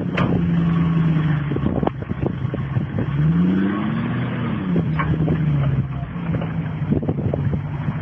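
Land Rover engine running, revving up once about halfway through and settling back to a steady note, with a few sharp knocks over it.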